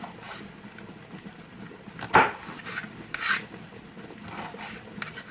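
Pots and kitchen utensils being handled: a sharp clank about two seconds in, then several short scraping and rubbing noises.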